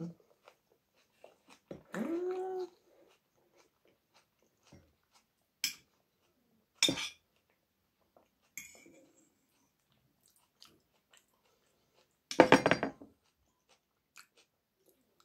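Eating sounds: chewing and a fork clicking against a metal frying pan. A short pitched cry about two seconds in, and a louder, harsher one near the end.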